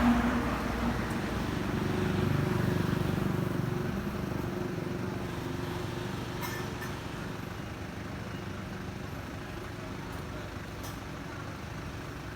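A motor vehicle engine running with a steady low hum. It is loudest about two seconds in and then fades off, with a few faint clicks.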